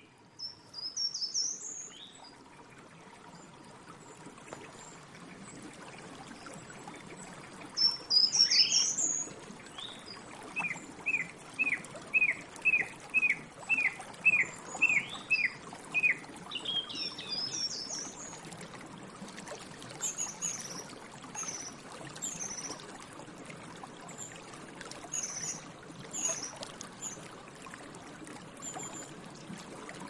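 Song thrush singing in separate phrases, with a run of about a dozen quick identical repeated notes in the middle. Under it runs a steady rush of flowing water.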